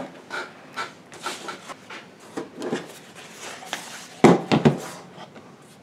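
Handling noise as a MacBook Air is moved about on a tabletop: scattered light clicks and rubbing, then a quick run of three loud knocks a little past the middle.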